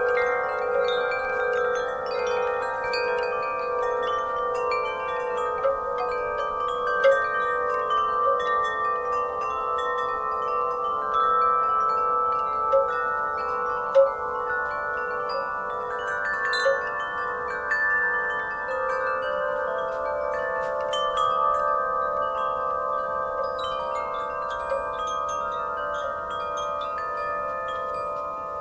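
Wind chimes ringing in a breeze: many overlapping sustained metal tones, struck irregularly, with a few louder strikes now and then.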